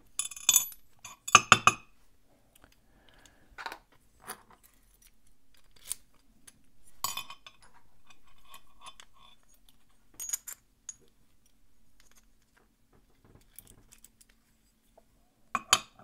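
Light metallic clinks and taps of a brass pin-tumbler lock core, its key and a plug follower being handled against an aluminium pinning tray while the core is set up to be taken apart. Scattered single clicks, loudest in a cluster about a second in and again just before the end.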